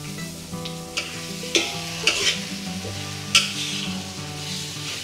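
Aromatics (ginger, galangal, garlic, shallots and whole spices) sizzling in a large aluminium wok while a metal spatula stir-fries them. Several sharp scrapes and clinks of the spatula against the wok; the loudest comes about three and a half seconds in. The aromatics are being fried with sugar over low heat.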